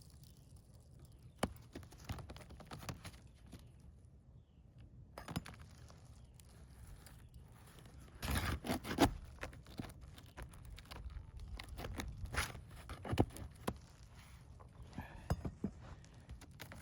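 Asphalt shingles being worked loose on a roof: intermittent scraping with scattered sharp clicks, louder for a stretch about eight seconds in.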